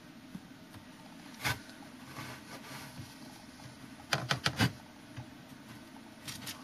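A single sharp click about a second and a half in, then a quick run of four or five clicks or taps a little after four seconds, over a low steady background hiss.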